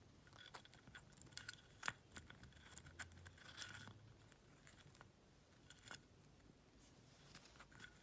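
Faint, scattered clicks and taps of a parrot's beak working a wooden foraging box, with a small cluster of taps in the middle; near silence in between.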